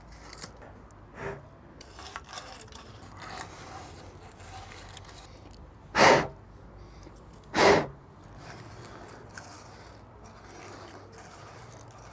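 Sandpaper rubbing rust off the steel headset area of a bike frame, in faint scratchy strokes. Two short, loud rushes of noise stand out, about six seconds in and again a second and a half later.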